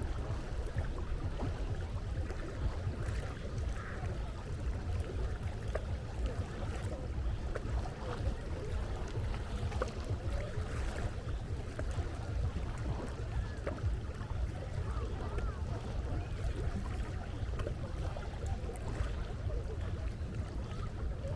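Seaside ambience: a steady low wind rumble on the microphone over the wash of the sea, with a few faint, short wavering calls in the distance.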